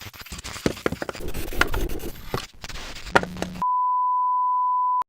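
A steady single-pitch censor bleep, about a second and a half long, near the end, dropped into otherwise cut-out audio. Before it come irregular knocks and rustling.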